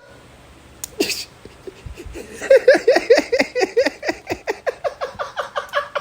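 A person laughing hard in a fast run of wheezing gasps, about five a second, each dropping in pitch, starting about two seconds in.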